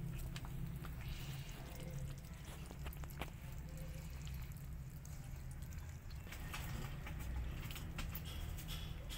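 Cats crunching dry kibble: irregular small crunches and clicks over a low steady rumble.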